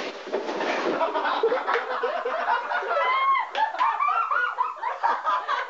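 A group of people laughing hard together, several voices overlapping throughout.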